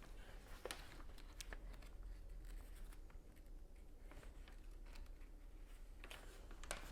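Faint, scattered clicks and rustling of Lego bricks being handled and pressed together.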